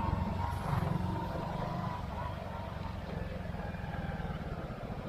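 Hero Splendor motorcycle's single-cylinder four-stroke engine running steadily while being ridden off-road.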